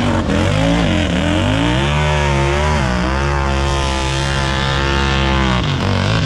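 Mud-racing off-road vehicle's engine revving hard. Its pitch drops about a second in, climbs again and is held high, then falls near the end.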